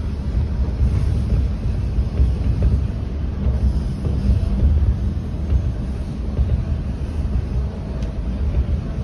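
Bombardier T1 subway train running along open track, heard from inside the car as a steady low rumble of wheels and running gear.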